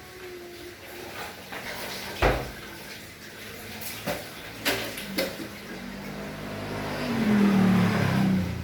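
Several sharp knocks and bangs, the loudest about two seconds in, then a low rumbling hum that grows louder over the last few seconds.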